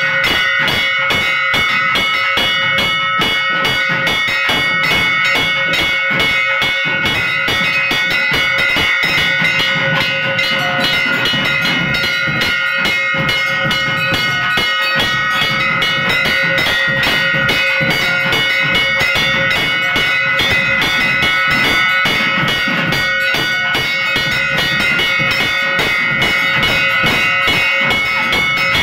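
Loud ritual music led by a bell rung nonstop in fast, even strokes, its ringing tones held steady throughout.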